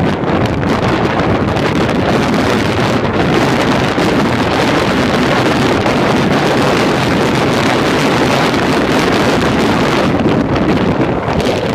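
Wind buffeting the microphone: a loud, steady rush of noise.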